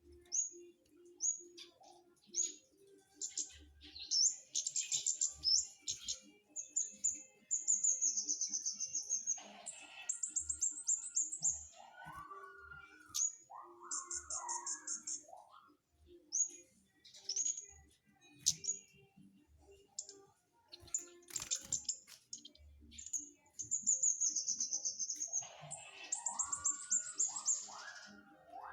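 Flowerpecker (cabe-cabean) singing actively: very high, thin chirps, short rapid trills and downward-sliding notes in repeated bursts.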